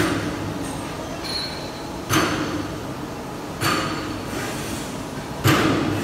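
Garage door track rail roll forming machine running with a steady mechanical noise, broken four times by sharp metallic clanks that ring on briefly, spaced about one and a half to two seconds apart.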